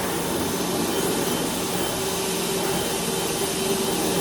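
A steady motor-driven whoosh, like a vacuum or blower fan running, with a faint held hum. It starts suddenly just before and keeps an even level throughout.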